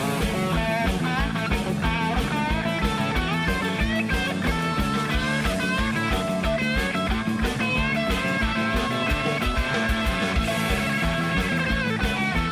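Rock music with a steady drum beat, an instrumental passage without singing in which a guitar leads with bending notes.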